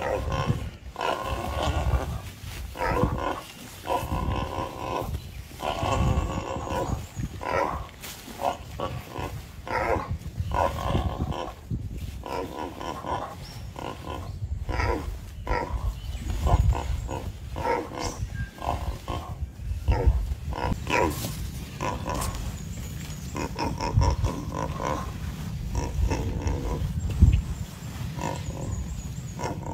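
Wild boar squealing and grunting in many short, irregular cries: distress calls of a boar being bitten by Komodo dragons. A steady low rumble runs underneath.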